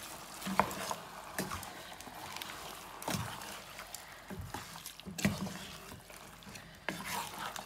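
A wooden spoon stirring raw chicken pieces, chopped red onion and spices together in a pot: irregular wet mixing noise with a few scattered knocks of the spoon against the pot.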